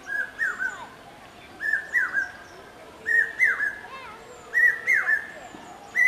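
Common hawk-cuckoo (brain-fever bird) calling: a repeated three-note phrase, a short flat note followed by two higher notes that slide down, given four times about every one and a half seconds. Thin high chirps of small birds sound faintly behind it.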